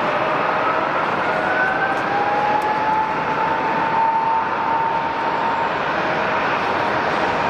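Four-engine jet airliner's engines running: a steady rushing noise with an engine whine that rises in pitch over the first few seconds and then holds.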